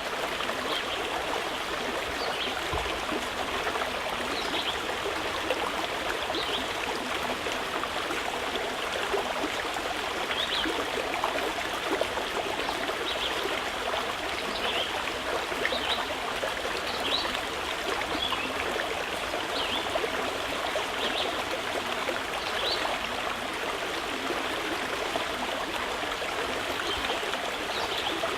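Running water flowing steadily, with many small trickles and splashes throughout.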